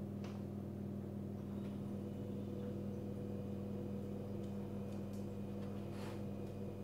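Steady low electrical hum that holds one pitch throughout, with a few faint clicks.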